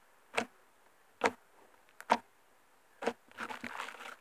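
Fluffy slime with beads being squeezed and pressed by hand: three sharp pops a little under a second apart, then a denser run of crackling squishes near the end.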